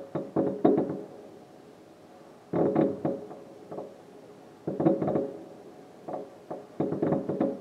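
Fireworks bursting, heard from inside a room: four volleys of several sharp bangs each, about two seconds apart, each bang ringing briefly.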